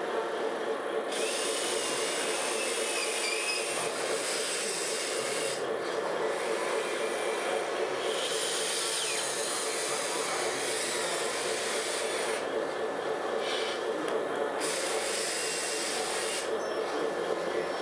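Small electric motors and gearboxes of radio-controlled model trucks and construction machines running with a steady whirr, the higher part of the sound changing abruptly several times.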